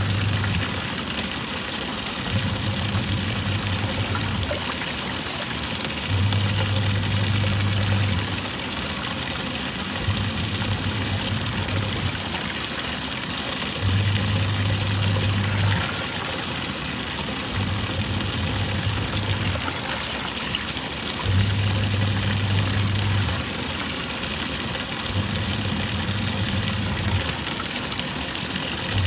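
Twin-tub washing machine agitating a load of work clothes: water sloshing, with the wash motor humming for about two seconds, pausing, then humming again as the pulsator switches direction, over and over.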